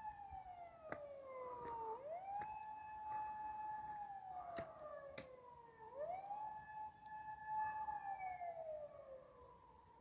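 Emergency vehicle siren wailing "woo-woo". Each wail rises quickly, holds its top note for about two seconds, then slides slowly down, repeating about every four seconds.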